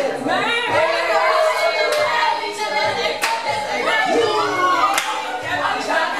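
A group of partygoers singing along loudly over music, several voices at once, with a few hand claps.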